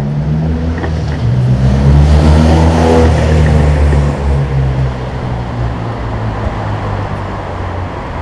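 A vehicle engine running at low speed. It swells louder about two seconds in and eases off again after about four seconds.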